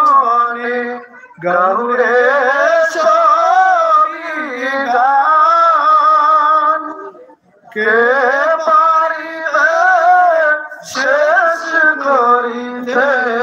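A man singing a naat, an Islamic devotional song in praise of the Prophet, unaccompanied into a microphone, in long phrases with an ornamented, wavering melody and short pauses for breath about a second in, midway and near the end.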